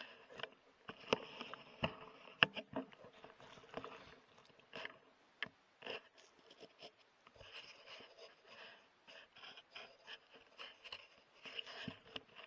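Handling noise: irregular scraping, rustling and sharp clicks close to the microphone, as of gear or clothing being moved about.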